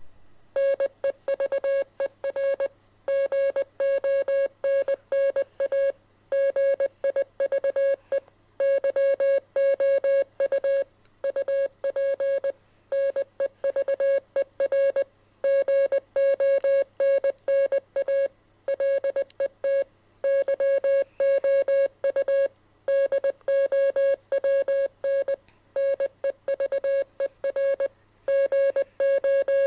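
Morse code sent as a single steady-pitched beep keyed on and off in rapid dots and dashes, in bursts of characters separated by short pauses.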